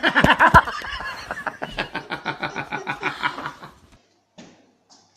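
Laughter in a quick, even run of ha-ha-has that trails off about three and a half seconds in.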